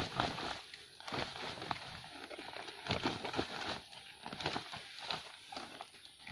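Freshly picked cardamom pods rustling and clattering as they are tipped from a woven bamboo basket into a woven plastic sack, with the sack's plastic rustling as it is held open. An irregular run of short clicks and rustles.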